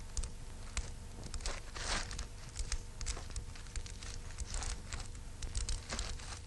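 Wood fire crackling, with irregular sharp pops and snaps from the burning logs over a faint steady hum.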